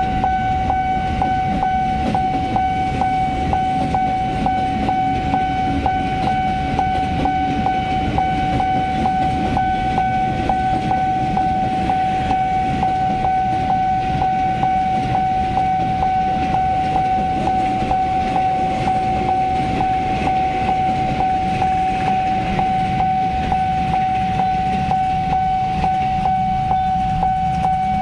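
Railway level-crossing warning alarm sounding continuously, one steady high tone with quick repeated strikes, over the low rumble of an electric commuter train passing and motorcycle traffic.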